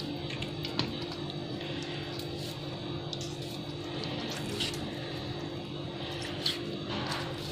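A steady background hum, with a few faint clicks and taps as a kitchen knife scores raw chicken pieces over a steel bowl.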